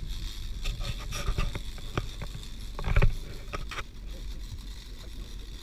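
Steady rumble and rush of a small fishing boat out at sea, with a run of short knocks and clatters over the first four seconds, the loudest about three seconds in.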